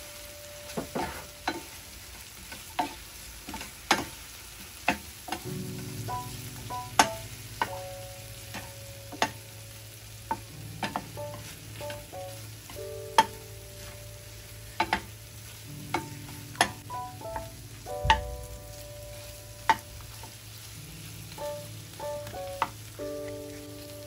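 Wooden spoon knocking and scraping against a non-stick frying pan while turning pieces of fried chicken in a gently sizzling sauce, in sharp irregular taps. Soft background music runs underneath.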